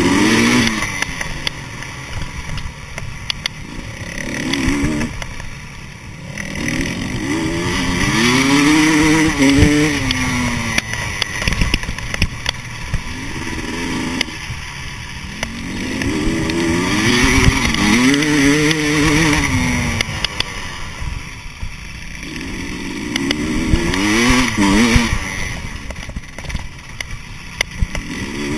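GasGas 300 EC single-cylinder two-stroke enduro bike engine being ridden hard, its revs rising and falling back several times as the rider opens and closes the throttle. Knocks and rattles are scattered through it.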